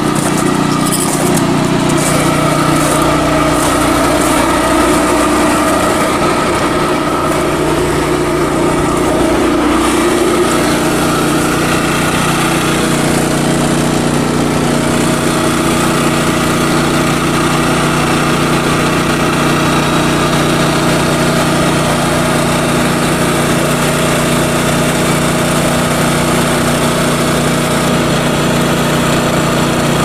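Predator 2000 inverter generator running steadily. Its pitch shifts about ten seconds in, then holds.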